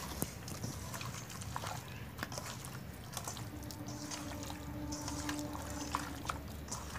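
A hand squeezing and mixing raw chicken pieces in a wet marinade of onion, masala paste and mustard oil in a steel bowl: soft wet squishes and small scattered clicks. A faint steady tone is held from about halfway to near the end.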